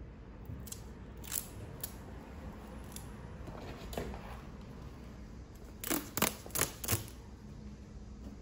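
Handling noises from taping and fitting the drone's foam and plastic parts: a few faint clicks and crackles, then four sharp clicks in quick succession about six seconds in.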